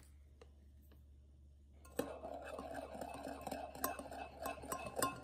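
Carbonated water fizzing as it foams up with powdered milk in a glass measuring jug: a steady crackle of small bubble pops that starts about two seconds in, after near quiet.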